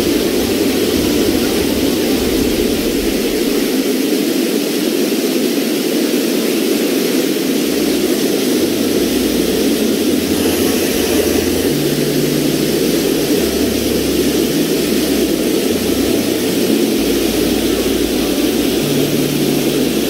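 Steady rush of water falling at a waterfall: an even, unbroken noise with no pauses.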